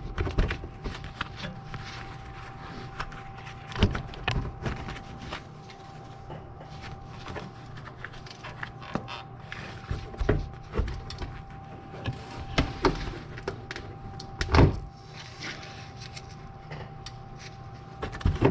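Hand tools knocking and clinking against the engine's belt tensioner and pulleys as the tensioner is levered with a long wrench and the serpentine belt is worked off. Irregular knocks and clicks, the loudest about three-quarters of the way through, over a faint steady hum.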